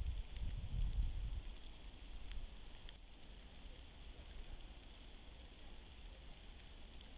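Small songbirds calling with thin, very high notes: short downward-hooked calls and quick runs of little ticks, repeated several times from about a second in. Under them is a steady hiss, with a low wind rumble on the microphone in the first second and a half.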